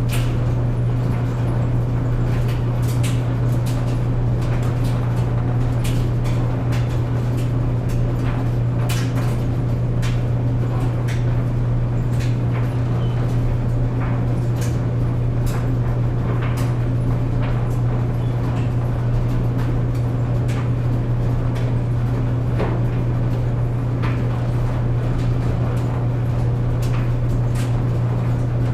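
Clothes dryer running with a steady low hum and scattered, irregular light clicks and knocks.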